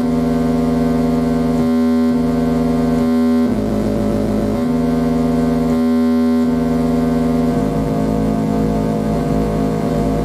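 Buzzy electronic tones from a laboratory signal generator, each a steady pitch with many overtones, switching abruptly between a few settings every second or so. About seven and a half seconds in, the tone turns rougher and wavering.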